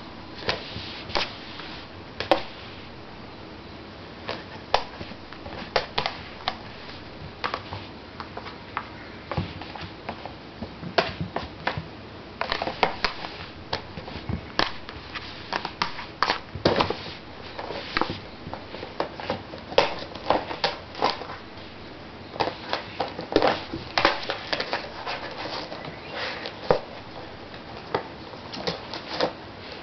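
A kitten's paws and claws scratching and tapping at a cardboard tissue box, in irregular clusters of quick, sharp scrapes and taps.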